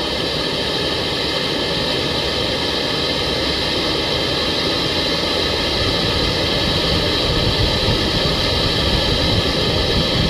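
Handheld gas blowtorch burning steadily with an even hissing flame, heating a small metal pipe fitting on a diesel exhaust to burn off carbon.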